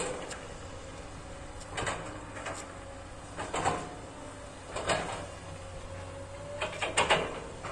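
SANY hydraulic excavator working, its diesel engine running steadily under load. Four heavy clunks from the digging gear come roughly every one and a half seconds as it works the soil.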